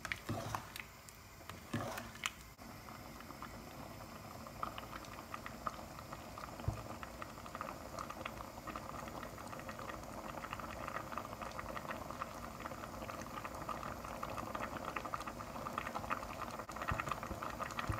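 Pot of thick vegetable soup simmering on the stove, a steady crackling patter of small bubbles popping at the surface that gets a little busier as it goes. A couple of light knocks stand out, one about two seconds in and one near seven seconds.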